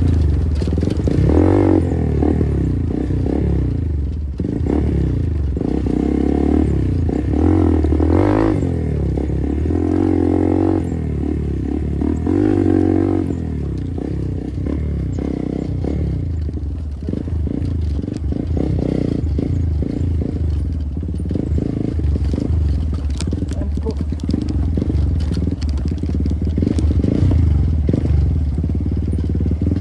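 Motorcycle engine under way, its revs rising and falling again and again through the first half, then running more evenly, with scattered clicks and rattles from the rough ride.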